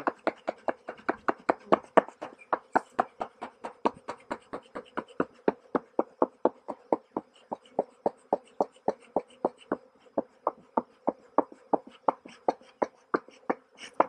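Bee smoker's bellows being pumped in a quick, steady rhythm of about three to four puffs a second, puffing smoke to drive honeybees down into the hive. Faint honeybee buzzing hums underneath.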